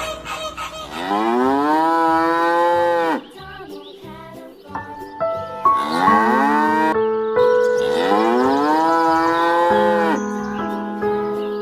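Cattle mooing: long, drawn-out moos that rise in pitch and then hold, one about a second in and more around six to nine seconds in, over light background music.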